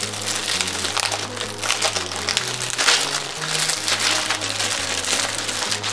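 Small plastic bags of amigurumi safety eyes rustling and crinkling as they are handled, over soft background music with held low notes.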